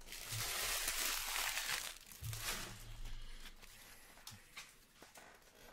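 Trading cards being gathered and handled by hand: a crinkly rustle for about two seconds, then fainter rustling and a few light taps.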